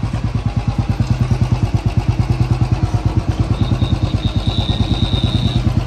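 Royal Enfield Classic's single-cylinder engine running at low revs with an even, rapid beat of about nine pulses a second as the bike rolls up and idles. A thin high-pitched tone sounds for about two seconds past the middle.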